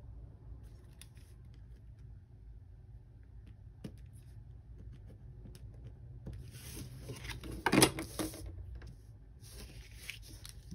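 Faint scratching and handling of planner paper and washi tape against a plastic ruler, then a short, loud papery tearing sound about seven to eight seconds in.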